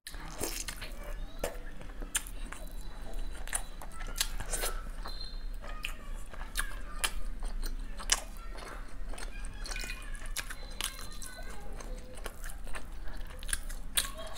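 Close-miked eating: a mouth biting into and chewing boiled egg and spiced rice biryani, wet and smacking, with many sharp clicks scattered throughout.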